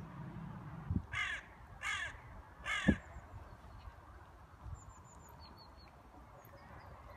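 A crow cawing three times, harsh calls well under a second apart, with two dull thumps, the second one landing on the last caw. Faint high chirps from a small bird follow.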